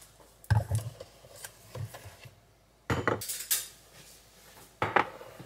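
Kitchen items being handled on a stone countertop: bottles and a carton set down with knocks, and a metal spoon clinking, in a series of separate knocks and clinks.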